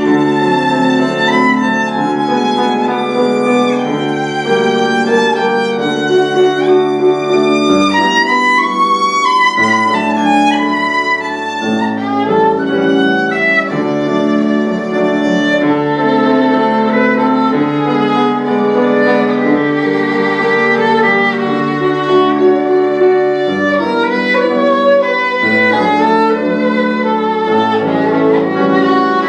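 Solo violin playing a slow, singing melody of held notes over a piano accompaniment.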